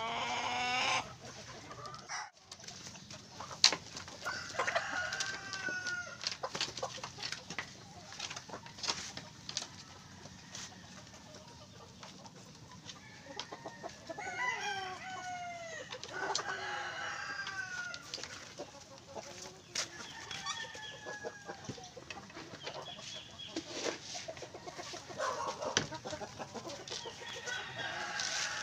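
A flock of chickens clucking and calling while they feed, with several longer falling calls. Short sharp taps of beaks pecking feed from the trough are scattered throughout.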